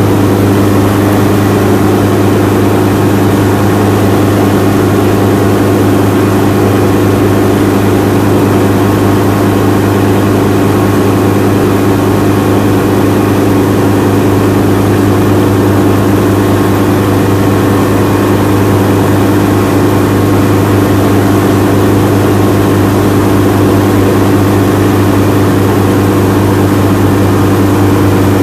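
Helicopter in flight heard from inside the cabin: a loud, steady drone of rotor and engine with a strong low hum and several steady tones above it, unchanging throughout.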